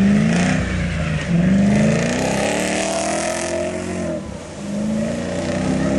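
Nissan Patrol 4x4 engine revving hard under load, its pitch climbing and dropping back several times as the driver works through the gears and the throttle. A rush of spray from the wheels ploughing through water joins in about halfway through.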